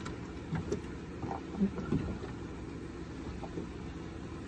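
Boat engine idling: a steady low rumble, with a couple of faint brief knocks around the middle.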